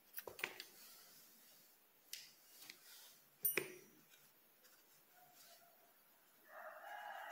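Light clicks and taps of small scissors being handled and set down on a table after snipping a yarn end, the sharpest click about three and a half seconds in. Near the end a rooster starts crowing faintly in the background.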